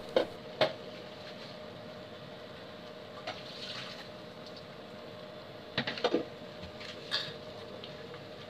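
Water heating in a stainless steel pot on an induction cooktop, a steady bubbling hiss with a faint steady hum. A few short knocks cut in near the start, in a cluster about six seconds in, and once more a second later.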